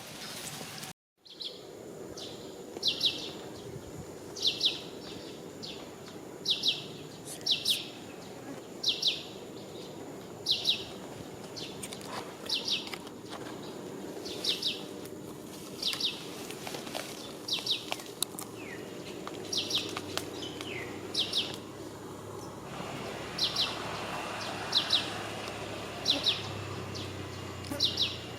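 A bird calling over and over, one short, high, sharp note about every one and a half to two seconds, above a steady outdoor background hum. The sound drops out briefly about a second in.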